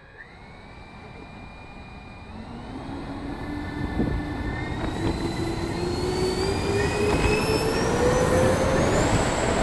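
Electric ducted fans of a Freewing AL37 RC jetliner spooling up for takeoff: a whine that climbs steadily in pitch and grows louder as the jet accelerates down the runway.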